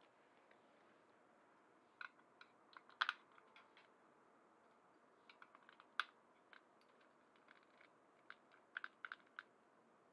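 Light plastic clicks and taps of a small screwdriver working the screws in a toy mini hovercraft's plastic shell, with single louder knocks about three and six seconds in and a quick run of clicks near the end.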